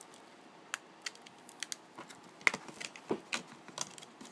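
Small sharp plastic clicks and ticks of a hard plastic CPU clamshell cover being opened and handled, irregular and scattered, the loudest about two and a half seconds in.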